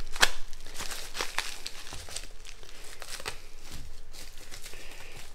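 Brown paper wrapping and heavy packing tape crinkling and tearing as a taped-up parcel is cut and pulled open, with irregular sharp crackles.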